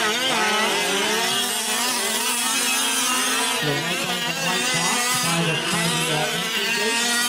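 Several 1/5-scale gas RC off-road trucks racing, their small two-stroke engines revving up and easing off. Several engines overlap at different pitches.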